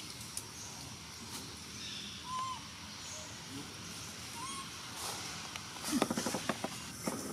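Dry leaf litter crackling and rustling for about a second late on, as macaques move over it. Earlier there are two short, soft hoot-like calls about two seconds apart, over faint high bird chirps.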